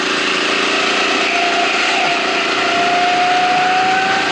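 Go-kart motor heard from on board, running at speed with a steady drone and a whine that climbs slowly in pitch from about a second in as the kart accelerates.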